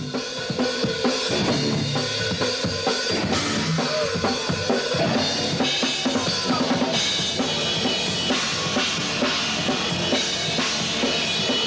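Live rock band playing, with the drums prominent.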